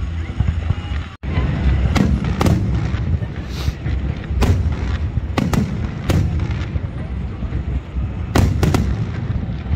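Aerial fireworks shells bursting overhead: a run of sharp bangs, several coming in quick pairs, over a steady low rumble. The sound cuts out for an instant about a second in.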